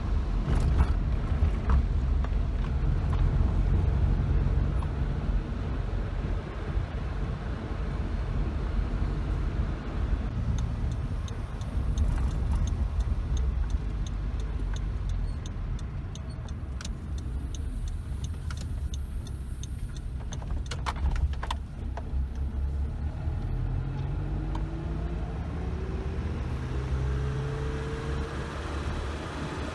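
Suzuki Jimny driving, a steady low engine and road rumble. Near the end the engine note climbs in pitch as the car accelerates.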